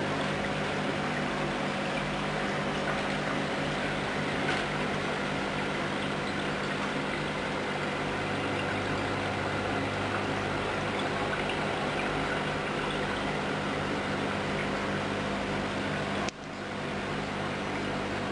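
Steady electric hum from aquarium equipment with water trickling and splashing in the tank. About sixteen seconds in the sound drops out briefly and comes back.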